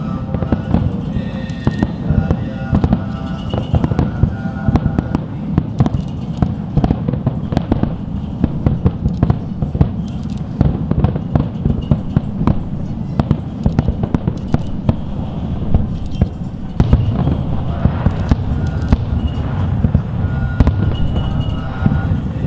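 Aerial fireworks bursting in a rapid, continuous barrage of bangs and crackles, with music playing underneath that is most noticeable near the start and the end.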